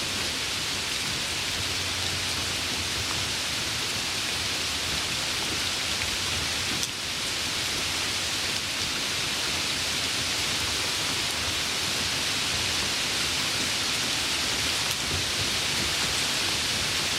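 Steady rain, a continuous even hiss, with a brief dip in level about seven seconds in.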